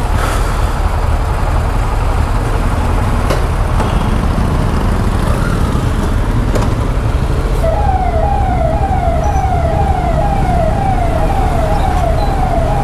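Steady low motorcycle engine rumble in slow street traffic. About eight seconds in, an electronic siren starts up, a fast warble that sweeps upward over and over, two to three times a second.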